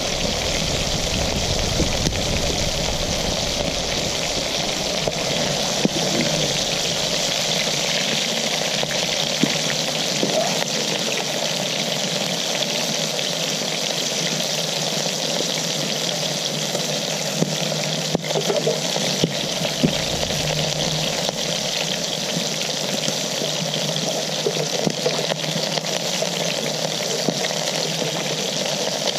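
Food frying in oil in a pan: a steady sizzling hiss with scattered small pops.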